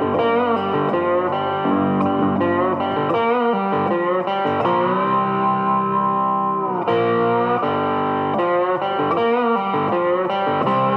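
Background music led by guitar, with long held notes that bend in pitch.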